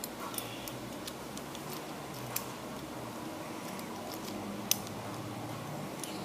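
Scattered light clicks and taps from small Beyblade parts and packaging being handled, with one sharper click a little over four and a half seconds in, over a faint steady low hum.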